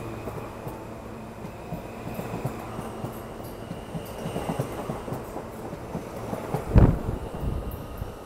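R160 subway train rolling past close by, its wheels clattering over the rail joints. About seven seconds in comes one heavy thump, the loudest sound.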